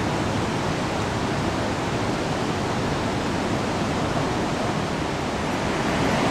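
Steady rush of water from the Chaudière River's falls and rapids, an even noise with no breaks.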